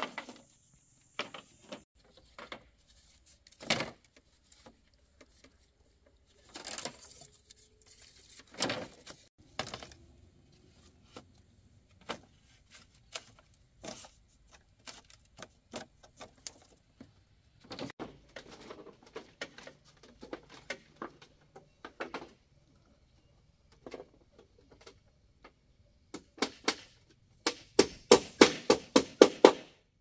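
Scattered knocks and taps at irregular intervals, ending in a quick run of sharp strikes, about five a second, which are the loudest sounds.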